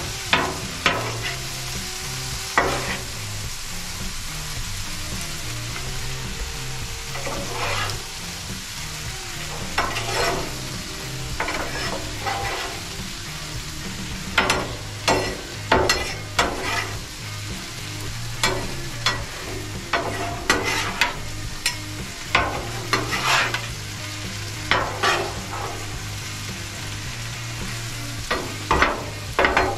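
Food sizzling steadily on a Blackstone flat-top griddle, with metal spatulas scraping and clacking on the steel as the stir-fry is turned. The clacks are sparse at first and come thick and fast through the second half.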